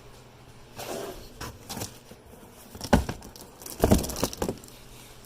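A few scattered knocks and clunks with some rustling as a boxed new brake rotor is fetched and handled, the sharpest knocks about three and four seconds in.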